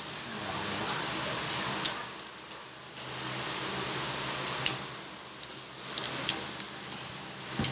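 Plastic toy car being snapped back together by hand, with handling rustle and sharp plastic clicks: one about two seconds in, one near five seconds, then a few smaller clicks around six seconds.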